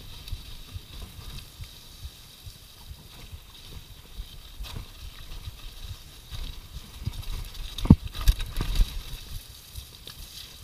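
Mountain bike ridden fast down a dirt and rock trail: a steady low rumble and rattle of tyres and frame on rough ground, with a cluster of hard knocks about eight seconds in.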